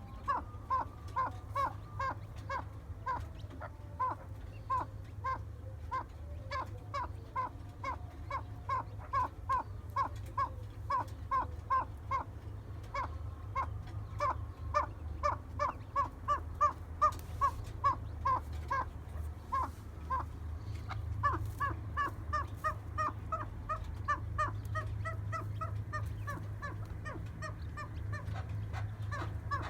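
Geese honking over and over, short calls about two a second, several birds overlapping in the second half, over a steady low rumble.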